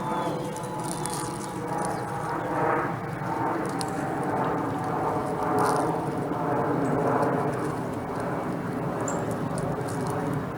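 Steady outdoor background hum, like a distant engine, that swells and fades every second or two, with a couple of faint high chirps.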